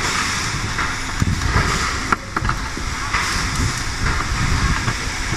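Steady workshop machinery noise with a low rumble, and a few short sharp clicks between about one and two and a half seconds in.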